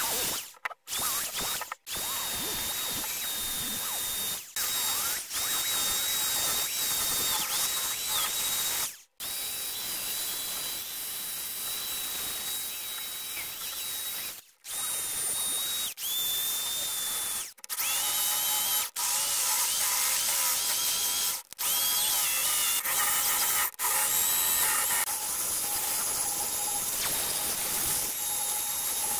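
Cordless drill spinning a wire brush and then an abrasive disc against the metal body of an antique meat grinder, scouring off rust: a steady motor whine over a rough scraping hiss. Several short silent gaps break it where clips are joined.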